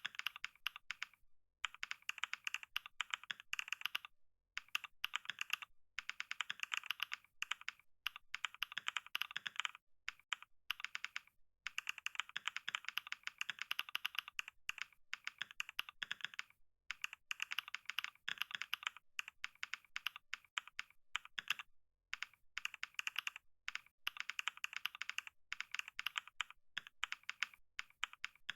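Computer keyboard typed on quickly during a typing test: rapid key clicks in runs of a second or two, broken by brief pauses.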